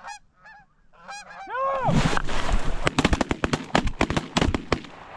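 Canada geese honking as they come in over decoys, then a rapid volley of shotgun blasts from several hunters, about a dozen shots in three seconds, starting about two seconds in.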